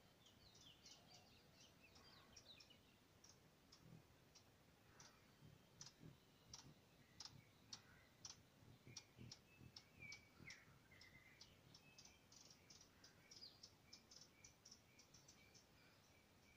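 Near silence with faint, irregular clicking, several clicks a second and busiest in the middle, and a few faint high bird-like chirps, with a short run of evenly repeated high notes in the second half.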